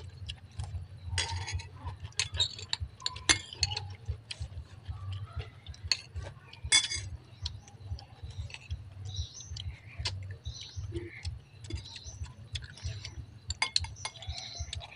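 Metal spoons and forks clinking and scraping on ceramic plates and bowls as people eat, in scattered irregular clicks, the sharpest about a second in, about three seconds in and near seven seconds. A steady low hum runs underneath.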